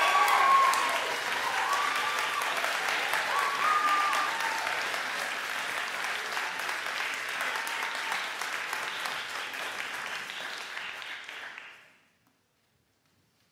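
Audience applause with a few cheers in the first few seconds, fading gradually and then cutting off abruptly about twelve seconds in, leaving near silence.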